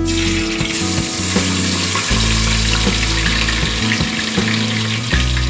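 Wet onion, garlic, ginger and green chilli paste dropped into hot oil in a steel pot, sizzling loudly as it starts to fry. The sizzle starts less than a second in and holds steady.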